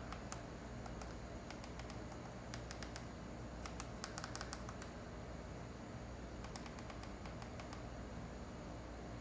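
Faint light clicks in short irregular clusters, like typing, over a low steady room hum.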